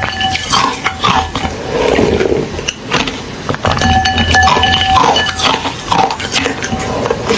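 Close-up chewing and crunching of hollow refrozen ice in the mouth, a dense run of sharp cracks and crunches. Faint held tones sound in the background twice.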